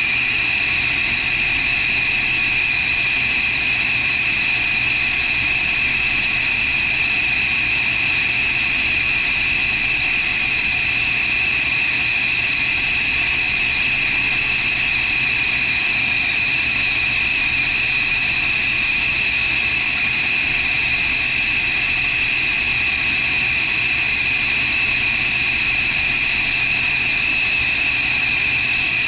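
Acetylene torch flame burning with a steady, even hiss, with a strong high-pitched edge to it, while it heats a copper water pipe for brazing.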